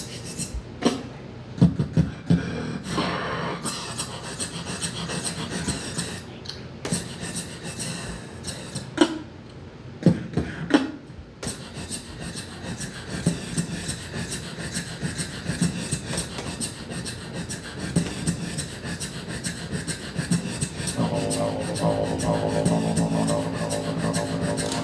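Beatboxing into a handheld microphone: vocal percussion with sparse hits and gaps at first, then a fast, steady rhythm from about halfway. A low sustained tone joins under the beat near the end.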